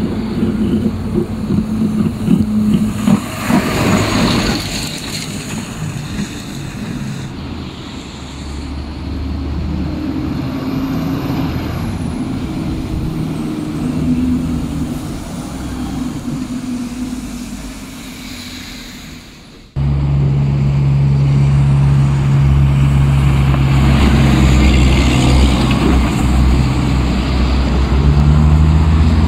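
Heavy dump trucks' diesel engines and tyres on a snowy road as the trucks drive past, with a short hiss about four seconds in. About two-thirds of the way through, the sound switches suddenly to a louder, steady diesel engine running close by.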